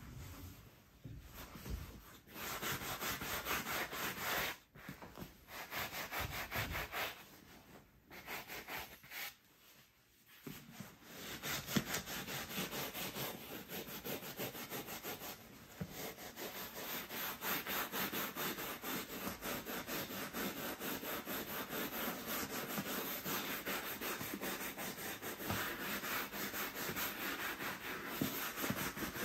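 Bristle clothes brush scrubbing the sheepskin leather of a Schott B-3 flight jacket in rapid back-and-forth strokes, its first brushing before oiling. The brushing stops briefly about a third of the way in while the jacket is handled, then runs on steadily.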